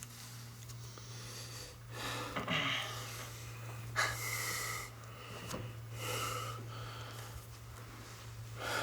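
A person's heavy breathing, with breathy gasps or sighs coming about every two seconds over a steady low hum.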